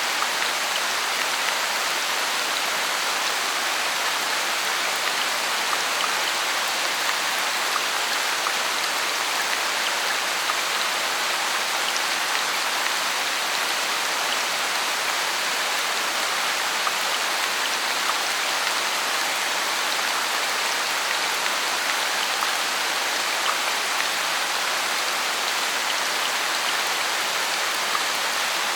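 Steady rain: a dense, even hiss with small scattered drop ticks.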